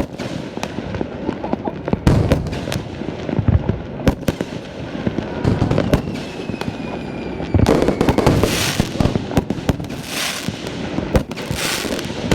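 Aerial fireworks bursting: repeated sharp bangs, a falling whistle about six seconds in, then bursts of high hissing every second or so in the second half.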